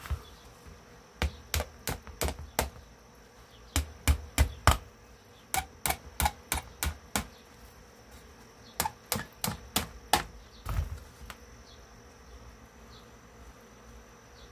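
Light hammer taps knocking a piece into place, in short runs of four to six taps about three a second with pauses between, over a faint steady hum.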